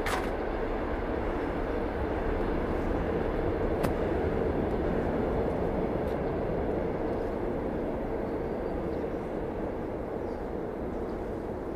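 Steady rumbling background noise with a low hum, starting abruptly and holding even, with a brief sharp click about four seconds in.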